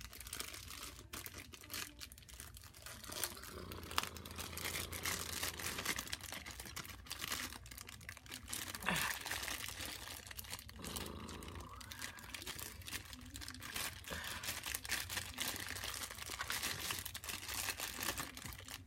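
Toy packaging being handled and opened, crinkling and rustling with many small clicks and crackles.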